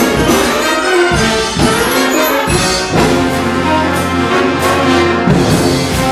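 Wind band playing a loud full-ensemble passage, with brass to the fore over woodwinds, bass and drums. The low bass drops back in the first couple of seconds and comes in strongly about three seconds in.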